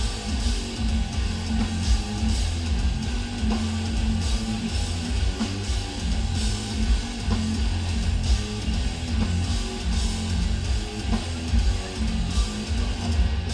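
Extreme metal band playing live: heavily distorted, down-tuned eight-string guitars and bass chug stop-start riffs in lockstep with drums and cymbals.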